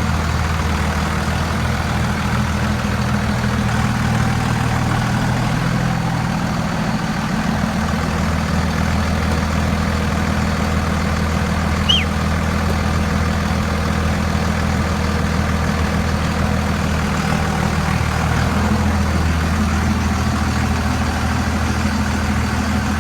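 Straight-piped Cummins diesel engine idling steadily. About halfway through there is one brief, high, falling chirp, the loudest moment.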